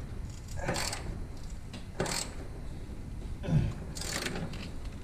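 Hand tools working the nuts on a Miata's rear strut top mounts from inside the trunk: about four separate light metallic clinks and knocks, scattered over a few seconds.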